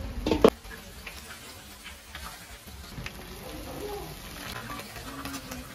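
Fritters sizzling in a kadai of hot oil while a wire spider skimmer lifts them out. A sharp metallic clank about half a second in, as the skimmer strikes the pan or the steel strainer.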